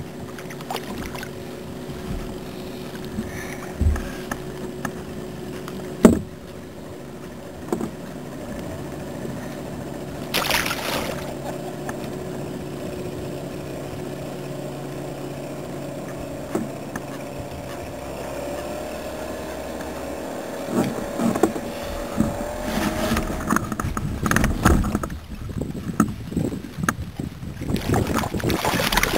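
Fishing gear being handled aboard a kayak: scattered small knocks and clicks, growing into a busier run of clattering in the last several seconds, over a steady faint hum.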